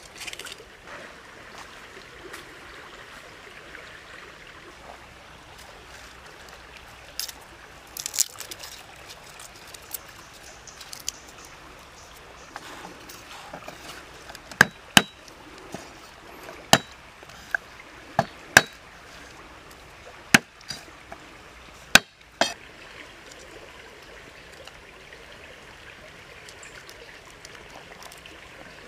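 A cleaver striking a wooden chopping block as garlic cloves are chopped: about ten sharp single chops, spaced irregularly, over the steady rush of a stream.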